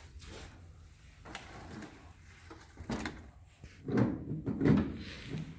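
Knocks, bumps and thuds of an RC monster truck and a charger's leads being handled and set down on a ribbed truck bed, loudest as a cluster of thuds about four to five seconds in.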